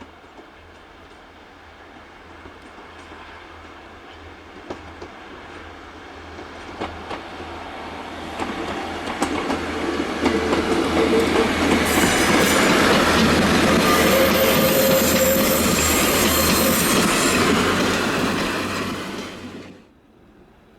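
Class 143 Pacer diesel railbus approaching and running past, getting steadily louder with wheel-on-rail clatter and high wheel squeal. It cuts off suddenly near the end.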